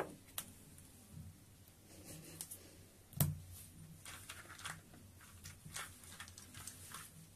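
Plastic toy train track sections being snapped together and pushed into place by hand: sharp clicks, the loudest about three seconds in, followed by a run of lighter clicks and scraping.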